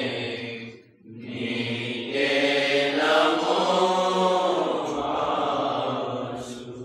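A voice chanting a devotional hymn in long, drawn-out phrases, breaking off briefly about a second in and fading away near the end.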